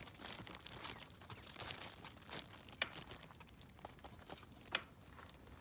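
Quail moving about in dry leaf litter and twigs: scattered faint rustling and crackling, with a few sharp clicks.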